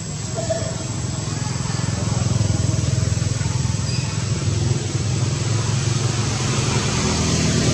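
A motor vehicle engine runs in the background as a steady low hum, getting louder about two seconds in and then holding. A thin, steady high-pitched tone sits above it.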